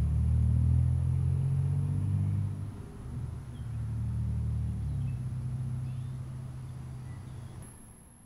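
Low rumble of an engine running, with a steady hum in it; it dips about three seconds in, comes back, then fades away near the end.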